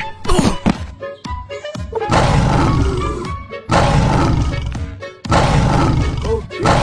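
Music track with three loud, noisy blasts, heavy in the low end, each lasting about a second and a half, starting about two seconds in.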